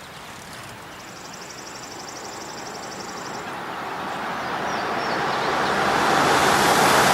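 A van approaching, its engine and tyre noise growing steadily louder until it is close near the end. An insect trills briefly early on.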